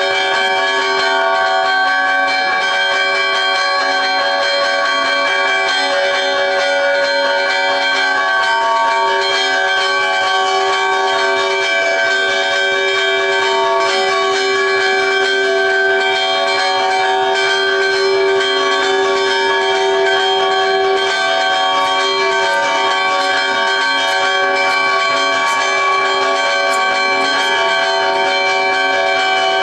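Church bells ringing continuously, several bells sounding over one another in a steady peal.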